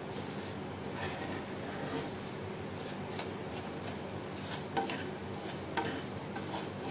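A spatula stirring and scraping semolina as it roasts in ghee in a nonstick pan, over a faint steady sizzle, with a few sharper scrapes against the pan in the second half.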